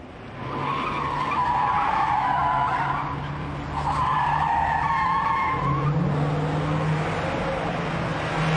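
Car tyres squealing in two long skids as a red convertible swerves round on a wet street, its engine running underneath; the engine note rises about two-thirds of the way through as the car pulls away.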